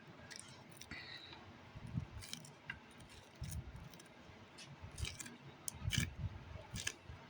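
Hands handling toy packaging: scattered light clicks, crinkles and soft knocks as the contents are taken out.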